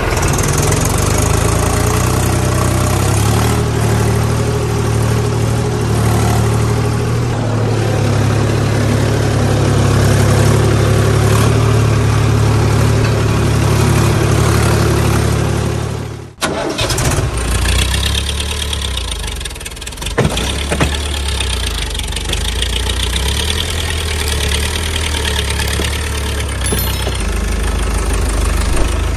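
Tractor engine running steadily at idle. About sixteen seconds in, the sound breaks off sharply and a different engine sound takes over.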